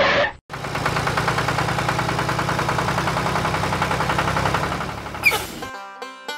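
Tractor engine running steadily with an even, rapid chugging pulse. It drops out briefly just after the start, then fades and stops near the end as plucked-string music comes in.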